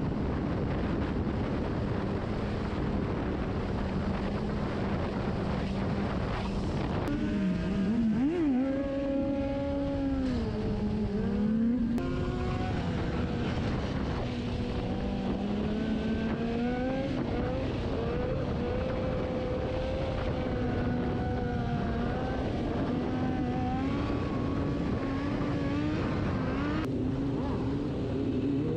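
Motorcycle engines running and revving, the engine pitch climbing and dropping again and again, over a steady rushing noise.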